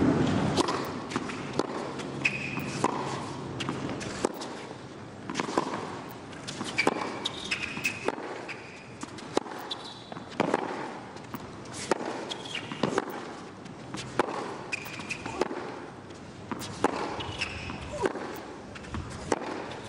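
Crowd cheering that fades in the first second, then a hard-court tennis rally: sharp racket strikes and ball bounces about once a second, with short rubber-sole squeaks against a low crowd murmur.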